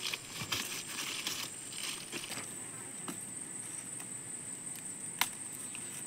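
Steady, high-pitched drone of insects. Rustling in the first two seconds, and a single sharp click about five seconds in.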